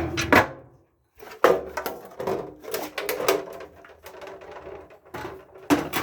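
Sheet-metal dryer parts being lifted and handled: a string of clanks, knocks and scrapes, the loudest near the start, about a second and a half in, and near the end.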